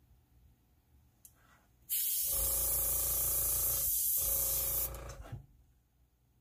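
Airbrush spraying ink: a loud steady hiss of air for about three seconds, with the air compressor's motor humming underneath from just after the hiss starts until shortly after it stops.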